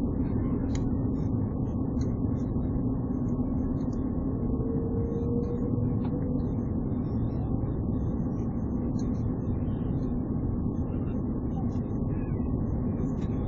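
Steady cabin noise of an Airbus A330-300 on approach, heard inside the cabin: a low rumble of its Rolls-Royce Trent 700 engines and airflow with a steady hum. A faint higher tone rises slightly for a couple of seconds near the middle.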